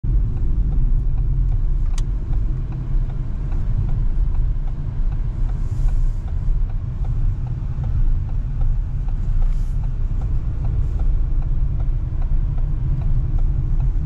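Steady low rumble of a car driving, with a single sharp click about two seconds in.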